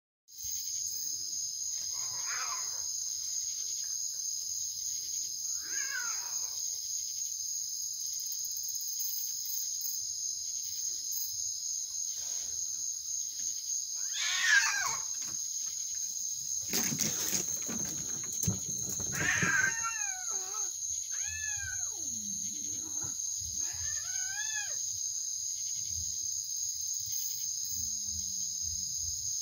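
Steady, high-pitched night insect chorus, with a series of short animal cries that rise and fall in pitch: the loudest about 14 seconds in and a cluster of them between about 19 and 25 seconds. A low rumble rises and fades between about 17 and 19 seconds.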